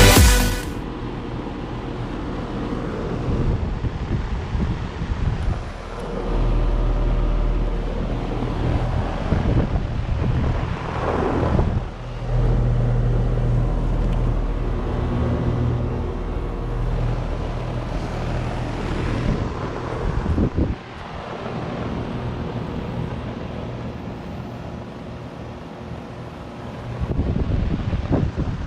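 Carrier Performance Series central air conditioner's outdoor unit running: a steady low compressor hum under the whoosh of the condenser fan. Rumbling gusts of air on the microphone come and go.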